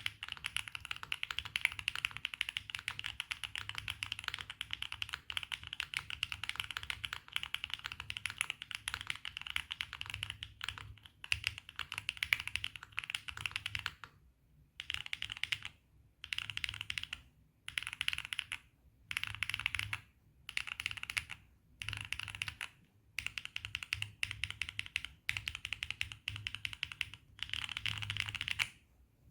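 Mechanical keyboard with Gateron Jupiter Banana tactile switches, mounted on an FR4 plate with full foam, typed on fast with a clacky sound. The typing is continuous for about the first half, then comes in short bursts of about a second each with brief pauses.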